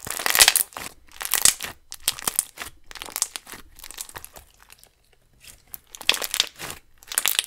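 Hands squishing and kneading an ultra-thick slime packed with jumbo beads: a run of uneven crackles and squelching pops, with a short lull about five seconds in.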